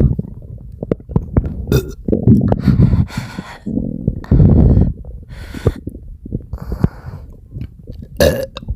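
A person's upset stomach gurgling and rumbling in loud, irregular bursts, with burps among them.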